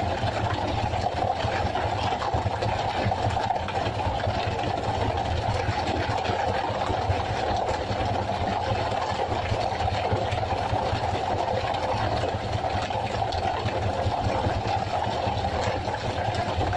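Fishing boat's engine running steadily, with scattered faint knocks over it.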